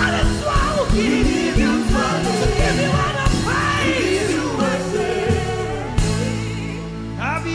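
Live gospel praise-and-worship music: singing over a band with sustained low notes and a steady beat. The beat drops out after a strong hit about six seconds in, leaving held chords under the voice.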